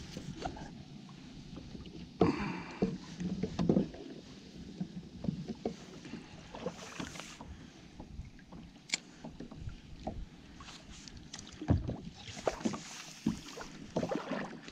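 Irregular knocks, clicks and clatters of a fishing rod, spinning reel and gear being handled aboard a plastic fishing kayak, over the lapping of small waves against the hull. The busiest handling comes about two seconds in and again near the end.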